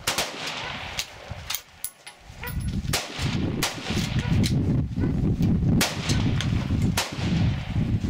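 Rifle shots on a shooting range: a sharp report right at the start and several more scattered through, with a steady low rumble from about three seconds in.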